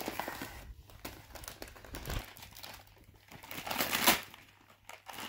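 Wrapping paper crinkling and rustling as a present is unwrapped, with a louder burst of crumpling about four seconds in.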